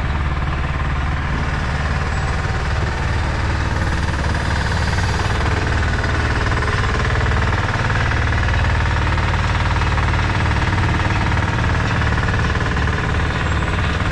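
Heavy truck diesel engine running steadily with a fast, even chugging, driving a truck-mounted loading crane that is lifting concrete slabs with a vacuum lifter.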